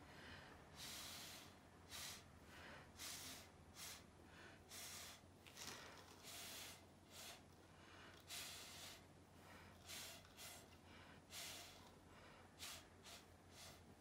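Short puffs of breath blown through a plastic straw onto wet acrylic paint, repeated irregularly about once a second.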